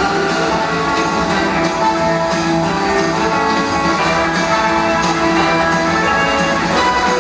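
Guitar-led rock music playing steadily, with no sound from the car standing out.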